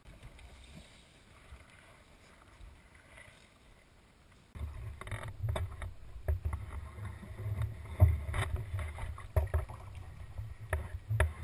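Faint rustling, then from about four and a half seconds a low, uneven rumble with irregular knocks and clicks from a small aluminum fishing boat as people shift about in it.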